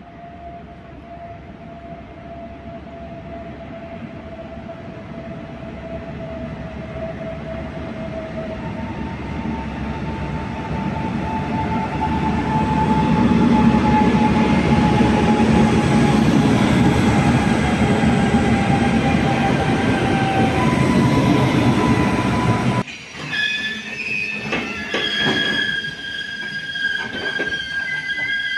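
WAG-9HC electric locomotive hauling a loaded goods train past, its steady whine falling slowly in pitch while the rumble of the wagon wheels grows louder as the train goes by. Over the last few seconds high, shifting wheel and brake squeals with clanks ring out as the train slows to stop.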